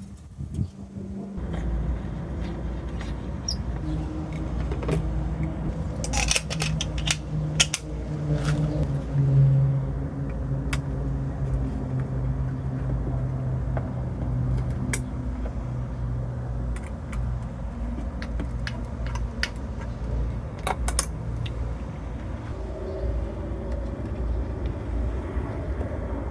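A steady low hum, with clusters of sharp clicks and rattles about six to eight seconds in and again about twenty-one seconds in.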